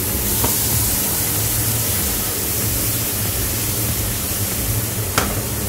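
Steady sizzle of mushrooms frying in a frying pan, with a sharp knock about five seconds in.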